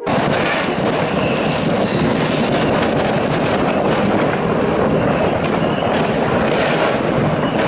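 A dense New Year's fireworks barrage: an unbroken crackle of many firecrackers going off at once, with a few short whistles over it.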